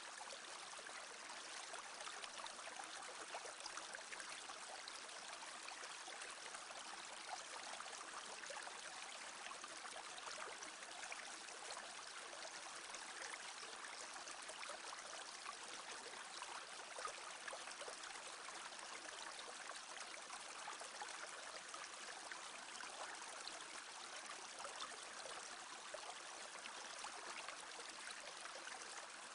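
Small brook babbling steadily: shallow water trickling and gurgling over stones, an even wash of fine splashes with no pauses.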